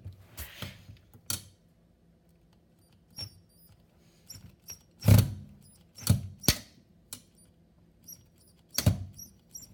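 Scattered clicks, taps and short scrapes of hard plastic parts and small hardware being handled and worked by hand.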